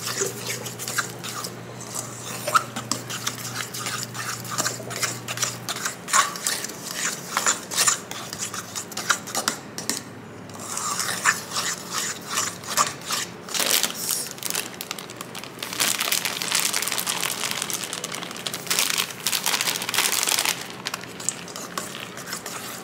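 Thick peanut-butter cookie dough being stirred and folded by hand in a stainless steel bowl: repeated scraping and clicking of the mixing utensil against the metal, busier for a few seconds near the end.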